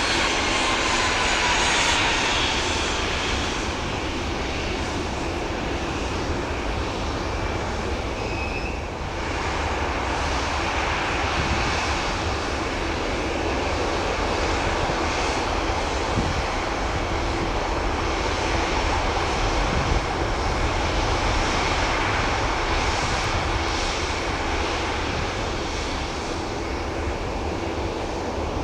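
Jet engines of an Airbus A340-300 airliner running with a steady rushing noise. A high whine falls in pitch over the first few seconds as the aircraft passes.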